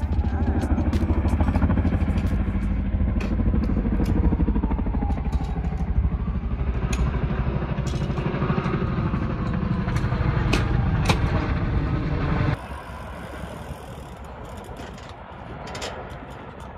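A loud, low engine rumble with a fast, even pulse, with scattered clicks over it. It cuts off abruptly about twelve and a half seconds in, leaving a quieter outdoor background.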